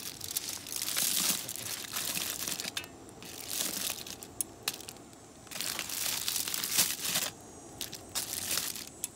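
Aluminium foil packets of fish crinkling as they are handled with metal tongs on a grill rack, in several separate bursts of rustling.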